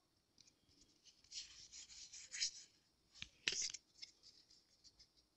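Faint rubbing and scraping of Pokémon trading cards being handled and slid against one another. It comes in two spells, the first about a second in, the second after a light tick just past the middle.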